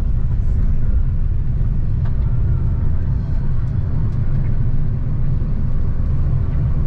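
Car driving on a dirt road, heard from inside the cabin: a steady low rumble of tyres and engine, with a few faint ticks.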